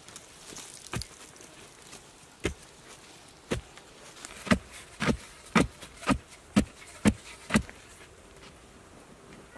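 A wooden digging pole striking down into hard, dry soil. There are a few scattered thuds, then a run of seven strikes at about two a second, each a short dull knock.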